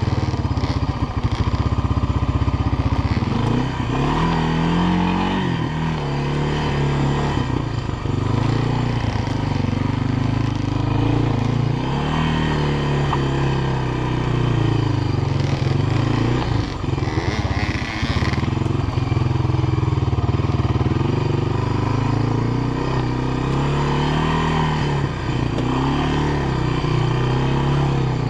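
Honda FourTrax ATV's four-stroke engine running while riding a rough trail, its note rising and falling over and over as the throttle is opened and eased.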